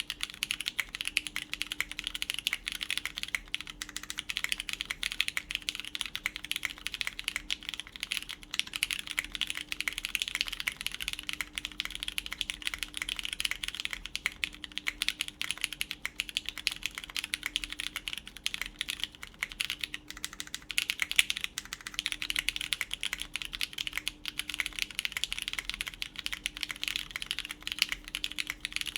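Continuous fast typing on a Machina Cloudnine R2 full-copper mechanical keyboard with lubed Cherry MX Brown (MX2A) switches, a PEI plate and GMK keycaps: a dense, unbroken stream of keystrokes.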